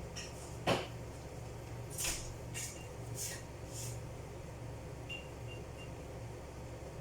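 Kitchen handling sounds over a steady low hum. A single sharp knock like a cupboard door shutting comes a little under a second in, then four short scraping rustles, then three faint short high tones.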